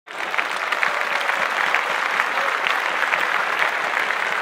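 Audience applauding, steady dense clapping that starts right at the beginning.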